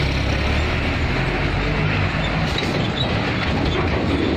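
A heavy engine rumbling low under loud, steady, noisy background din, the rumble fading about a second in.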